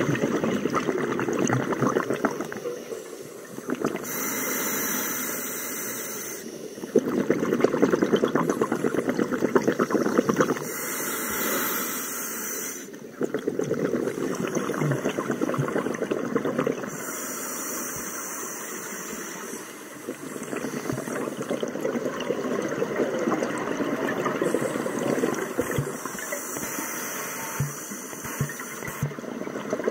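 Scuba diver breathing underwater through an open-circuit regulator on air: a hissing inhale of about two seconds, then a longer rush of exhaled bubbles, repeating about every six seconds, four breaths in all.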